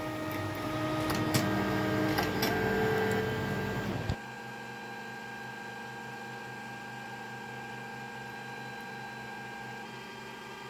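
Tronxy P802MA 3D printer's stepper motors whining in steady, shifting tones as the print head moves into position to begin a test print. They stop abruptly with a click about four seconds in, leaving only the printer's fans humming steadily.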